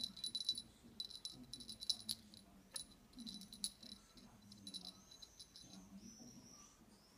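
Small cat wand toy rattling as a kitten bats and bites it, in quick bursts of sharp clicks that thin out after about five seconds.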